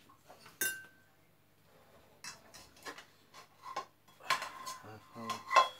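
Metal frying pan and cooking utensils being handled on the hob: a clink with a brief ring about half a second in, then a run of clatters and clinks in the last couple of seconds, loudest near the end.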